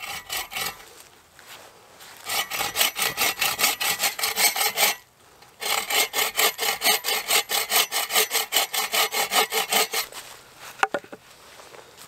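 Bow saw cutting through a barked wooden pole in two runs of quick, even back-and-forth strokes with a short pause between. A couple of sharp knocks come near the end.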